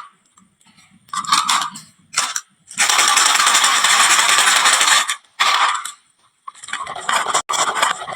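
Marbles rolling and clattering down a wooden marble-run slope, in short bursts with sharp clicks, and a longer run of continuous rolling about three seconds in that lasts some two seconds.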